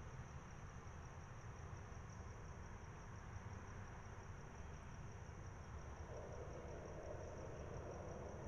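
Night outdoor ambience: a steady high trill of crickets over a low rumble of distant traffic. A passing car's rush swells in near the end.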